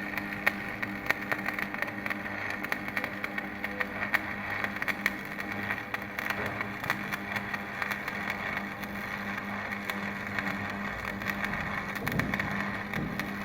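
Stick-welding arc with a 7018 electrode crackling and sizzling steadily as a bead is run around a pipe joint, with a low steady hum underneath.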